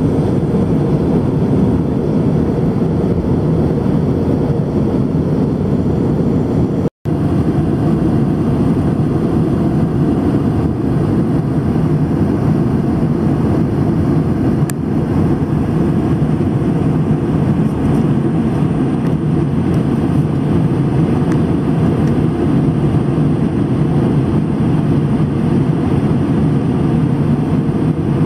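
Steady in-flight cabin noise of an airliner: a constant low rush of engine and airflow sound heard from inside the cabin. It drops out for a split second about seven seconds in.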